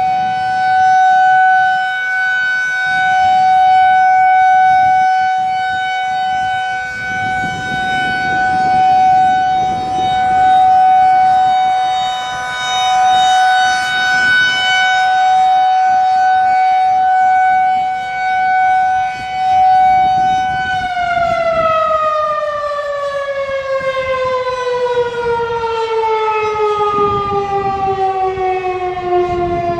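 Federal Signal 2001-DC 'Roundback' outdoor warning siren sounding a steady single tone that swells and fades as it rotates. About 21 seconds in it begins winding down, its pitch falling steadily as the siren's motor slows at the end of the test.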